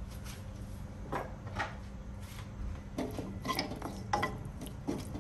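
A metal cooking utensil clinks and scrapes against a pan in scattered strokes as chicken bones are stirred while they brown, over a low steady hum.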